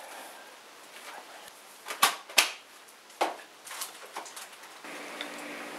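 A few sharp clinks and knocks of glassware, a glass measuring cup and a glass mixing bowl being handled, about two to four seconds in, the first two the loudest. A low steady hum starts near the end.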